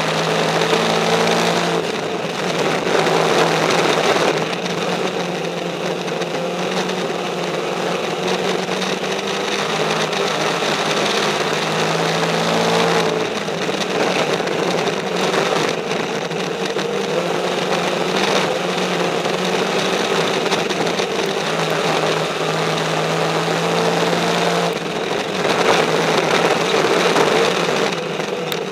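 A race car's engine under racing load, heard from inside the cockpit. The engine note rises and falls every several seconds as the throttle comes off and goes back on around the oval.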